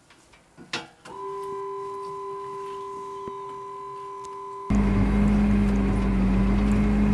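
A steady whine from the tractor's hydraulic seat lift as it raises the seated driver, starting about a second in after a few light clicks. A little after halfway it changes abruptly to the louder, deeper steady running of the tractor's engine heard from inside the cab.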